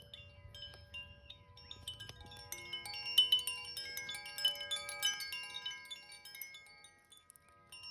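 Koshi chimes ringing: many overlapping bright, tinkling notes that grow busier a couple of seconds in and die away near the end. Faint crackles of a wood fire sound underneath.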